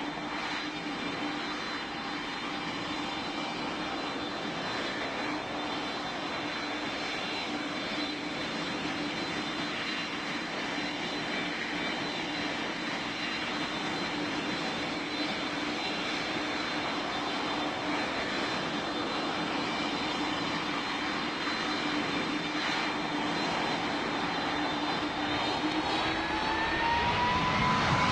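Airplane engines running steadily with a held whine, slowly growing louder. Near the end the pitch rises and the sound swells, as the engines spool up or the plane draws closer.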